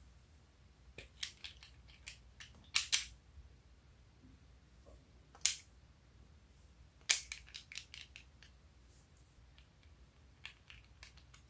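A glass nail polish bottle and its plastic screw cap being handled: scattered sharp clicks and taps in small clusters, the loudest a few seconds in and again after about seven seconds.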